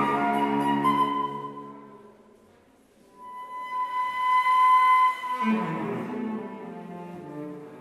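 Flute and cello playing a slow contemporary chamber piece. The sound dies away to a brief hush about two seconds in. Then the flute holds a long high note that swells, and the cello comes back in beneath it a couple of seconds later.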